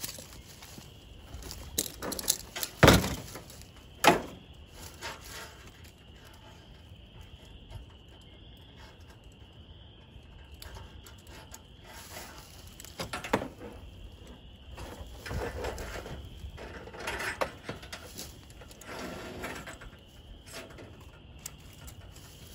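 A few sharp knocks, then scattered clicks, rustling and clatter as a come-along and strap are handled on the steel cage of an IBC tote, with footsteps in dry leaves.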